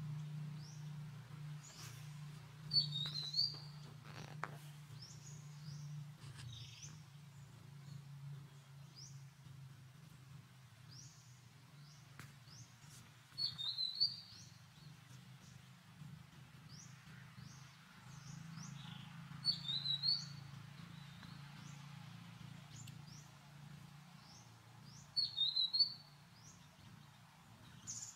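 Small bird chirping in quick high notes. There are four louder bursts several seconds apart, fainter scattered chirps in between, and a steady low hum underneath.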